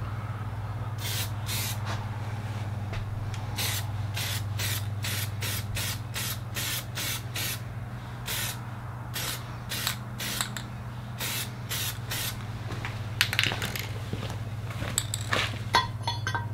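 Aerosol spray paint can spraying in a string of short hisses, roughly two a second, as paint is spritzed onto steel brackets. A steady low hum runs underneath.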